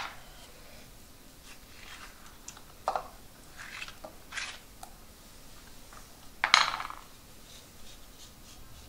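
Spoon and knife scraping through soft avocado flesh in the skin, with chunks dropping into a bowl: a few short scrapes and clicks, the loudest about six and a half seconds in.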